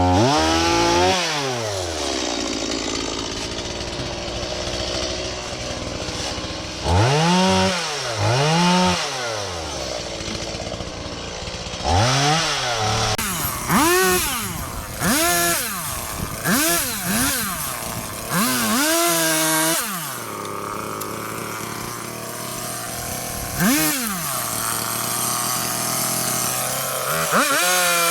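Two-stroke chainsaw cutting up a fallen, sappy pine tree. It is revved up and let back down to idle again and again, with a steady idle between the runs.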